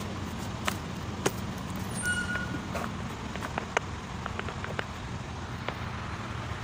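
Steady low workshop hum with scattered light clicks and taps, as tools are handled at the truck's front wheel to remove it. A short squeak about two seconds in.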